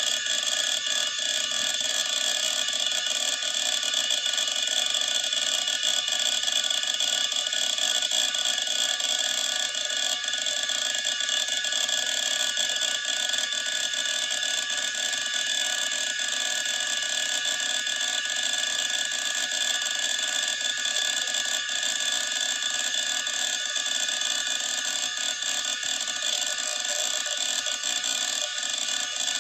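Old PC hard disk drive running, with a steady high-pitched spindle whine and irregular head-seek clicking.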